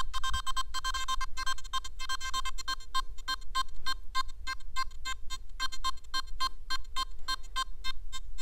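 Nokta Makro Simplex Plus metal detector beeping, short beeps about four a second, as a small piece of 999 fine gold is passed over its search coil: its target tone for pure gold.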